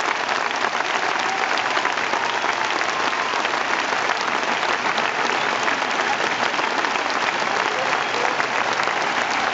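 A large opera audience applauding, a dense, steady clapping of many hands with no pause.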